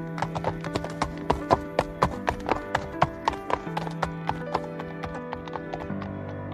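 Hoofbeats of horses galloping: a quick, uneven run of sharp hoof strikes that thins out about five seconds in, over steady background music.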